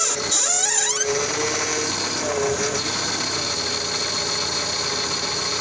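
Squealing from the front end of a 2001 Honda Accord as the steering is turned with the engine running, wavering up and down in pitch for about the first second, then settling into a steady mechanical running noise with a couple of short tones. The owner suspects a worn lower ball joint.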